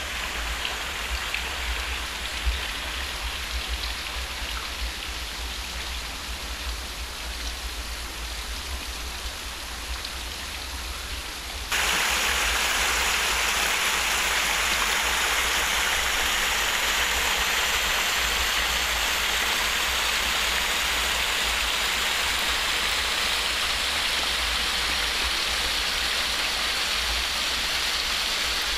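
Running water at a canal lock, a steady rushing with a low rumble underneath. About twelve seconds in it becomes suddenly louder and brighter, then holds steady.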